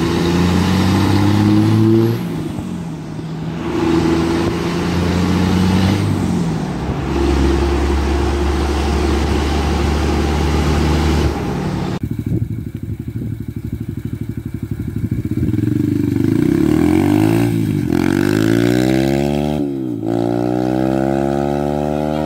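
A pickup truck driving, heard from the cab, its engine pitch climbing and dropping with gear changes. After a cut about twelve seconds in, a small dirt bike's single-cylinder engine idles with a fast, even pulse, then revs and pulls away, its pitch rising again and again as it shifts up.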